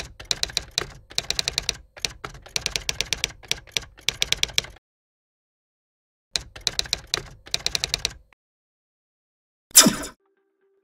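Typing sound effect: rapid key clicks in two runs, the first about five seconds long and the second about two seconds, with a pause between. A short, loud burst of noise near the end.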